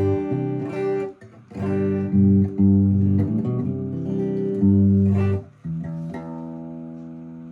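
Electric guitar (Epiphone SG Special) played through a Vox MV50AC amp into a 10-inch speaker cabinet. Chords are strummed and let ring, with short breaks just after a second in and at about five and a half seconds, ending on one long chord that rings and slowly fades.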